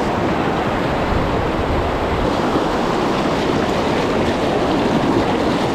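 River rapids: whitewater rushing steadily over a rock ledge, churning close around the legs of someone wading into the current.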